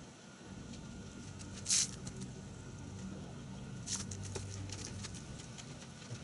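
Faint wet patter and crackle of a soapy microfiber wash mitt working over a car's wet paint, with one short, sharp splash about two seconds in and clusters of small wet clicks from about four seconds on.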